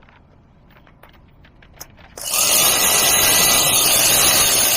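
A cordless power tool starts about two seconds in and runs steadily, tightening the bolts of a rebuilt starter onto the truck. A few faint clicks come before it.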